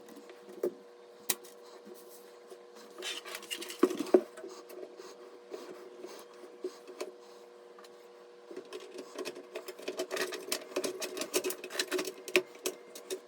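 Small clicks, taps and scraping from computer parts and tools being handled, with a denser run of quick rattling clicks in the last few seconds, over a faint steady hum.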